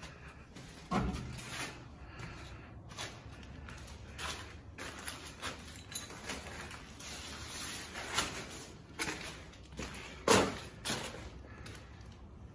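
Footsteps with irregular knocks and scuffs on a floor littered with debris. There is a sharp thump about a second in and the loudest knock about ten seconds in.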